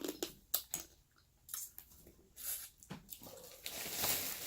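Close-miked mouth sounds of a person eating seafood boil mussels and shrimp: scattered wet smacks and clicks while chewing, then a longer soft rustling hiss near the end.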